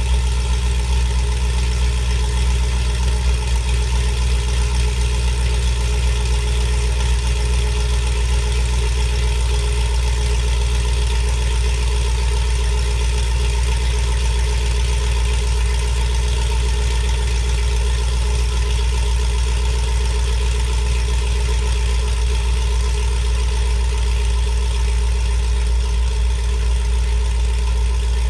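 2004 Pontiac GTO's 5.7-litre V8 idling steadily through 1-7/8-inch American Racing headers, a catless 3-inch X-pipe and a Corsa sport axle-back exhaust, with a low, even exhaust note that holds unchanged throughout.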